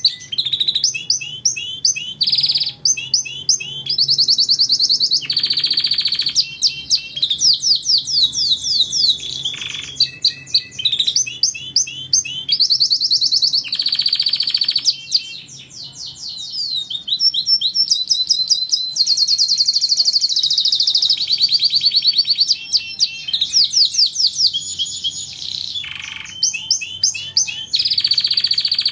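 Domestic canary singing a long, nearly unbroken song of fast trills and rolls, many notes a second, each phrase repeated before switching to the next, with only brief pauses.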